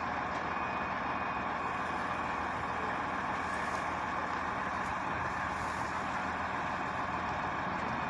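Mobile crane's diesel engine running steadily under load, a constant mechanical drone with no change in pitch.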